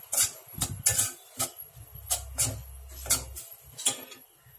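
Metal spoon clinking and scraping against a cooking pot while cooked squid rings are stirred: about ten sharp, irregular clinks.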